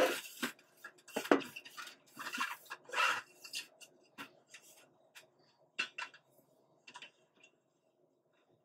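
Hands rubbing, pressing and shifting adhesive LED strips on a former fluorescent light fixture's reflector: irregular scrapes and rustles, busiest in the first few seconds, then a few sharp light clicks.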